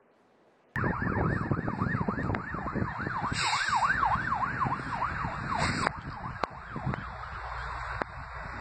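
Emergency vehicle siren in a fast yelp, its pitch sweeping up and down about three times a second, over heavy background noise. It cuts in abruptly about a second in and fades out after about six seconds.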